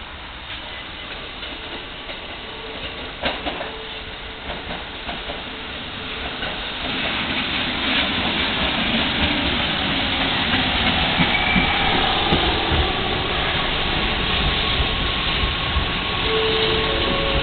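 Red Keikyu 800 series electric local train pulling into the station: the rumble of its wheels and motors builds from about six seconds in and stays loud as the cars run alongside the platform, with rail clatter and a few steady high tones near the end.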